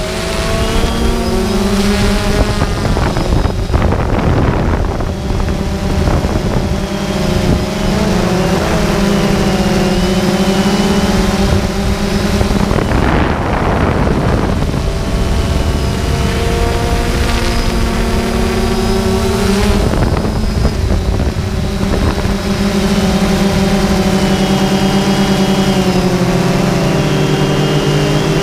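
Quadcopter drone's motors and propellers whining steadily, close to the microphone, in several pitches that drift as the drone manoeuvres. Wind rushes over the microphone a few times.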